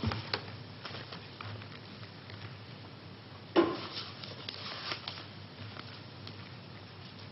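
Quiet handling noises in a small room: scattered soft clicks and knocks, with one louder sharp knock about three and a half seconds in.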